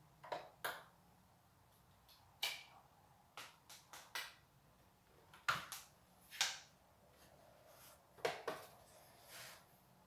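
Scattered light clicks, taps and brief rustles of a small plastic USB air cooler being handled, about a dozen in all, with no fan running.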